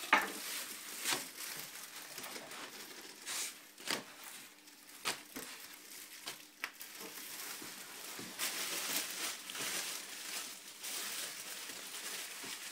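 Crisp tunnbröd (Swedish flatbread) being cut and snapped into pieces on a wooden board: a sharp crack at the start, then scattered snaps and crunches, and a longer dry rustle in the second half.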